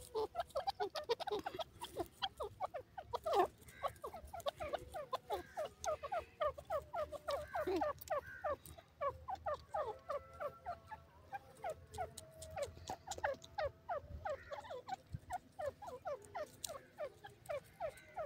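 Francolin (teetar) giving a continuous run of short clucking call notes, several a second, each quickly falling in pitch.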